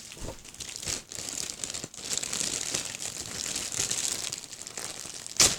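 Packaging crinkling and rustling as the globe is unwrapped and handled, with a single sharp knock near the end.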